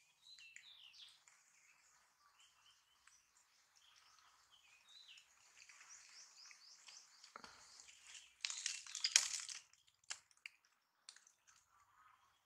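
Faint birds chirping, then a burst of crunching and rustling about eight and a half seconds in, followed by a few short clicks.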